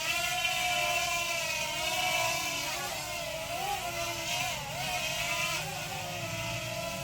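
JJRC JJ850 quadcopter's motors and propellers whining, the pitch steady at first, then wobbling up and down in the middle before settling again.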